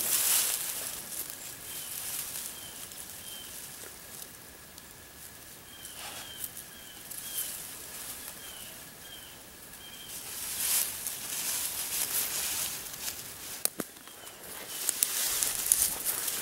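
Tall grass and weeds rustling and swishing as a person and a dog push through them on foot, louder near the start and again from about ten seconds in, with one sharp click near the end. Two runs of faint, short, evenly spaced chirps sound behind it.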